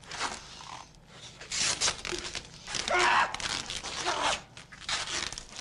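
Clear adhesive tape being pulled off the roll and wound around a person's head. It comes in several separate pulls of about half a second each.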